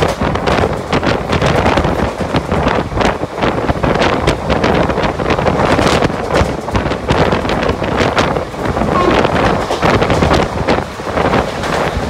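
Wind buffeting the microphone at the open door of the fast-moving Deccan Queen express. Under it runs a steady rush of wheel and track noise, broken by frequent sharp clatters.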